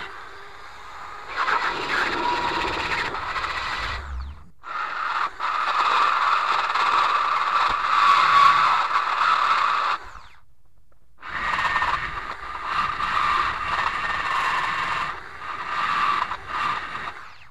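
Small electric drill spinning a rotary burr that grinds a groove along a crack in a cast iron plate, preparing the joint for brazing. The grinding comes in three long runs, with a brief break about four and a half seconds in and a pause of about a second just after ten seconds.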